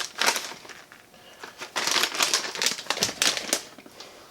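Shredded cheese being handled and sprinkled onto a flour tortilla: irregular light crinkling and crackling in two spells, the second one longer.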